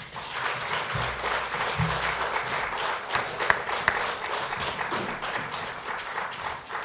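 Audience applauding: a dense, even clapping that eases slightly toward the end.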